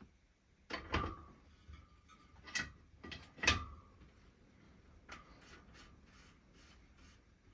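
A handful of separate metal clunks and clicks, the loudest about one second and three and a half seconds in, some with a short ring: a wheel spindle and spacers being handled and the wheel set into a truing jig.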